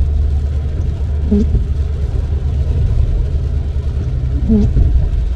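Steady low rumble of a car driving on a wet highway, heard from inside. A windshield wiper squeaks briefly on the glass twice, about three seconds apart, as the stiff wipers drag across the windshield.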